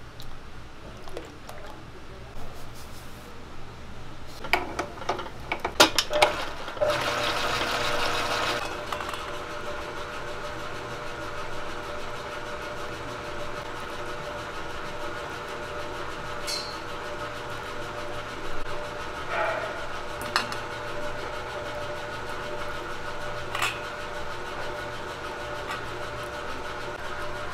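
Clinks and knocks of utensils on steel bowls, then about seven seconds in an electric stand mixer starts with a brief loud rush and settles into a steady motor hum and whine. A few sharp taps come from a spatula against a metal sieve.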